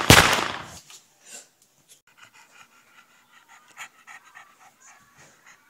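A loud gunshot-like bang that dies away within about a second, then a dog panting close to the microphone for the last few seconds.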